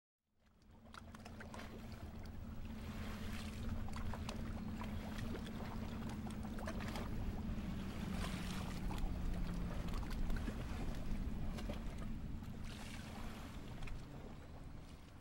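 A schooner under engine: a steady low engine drone with water rushing along the hull and wind noise. It fades in at the start and tapers off near the end.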